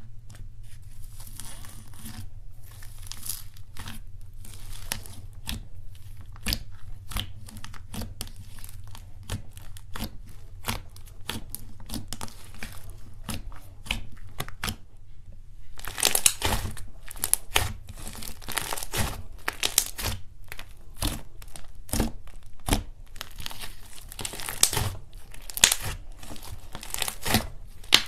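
Hands squeezing, poking and pressing a thick brown slime, making rapid sticky crackles and pops over a low steady hum. The crackling gets louder and denser a little past halfway through.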